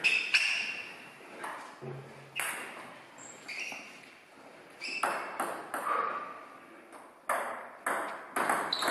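Table tennis ball clicking off paddles and the table: a few separate hits, then a quicker rally of sharp ticks from about halfway on.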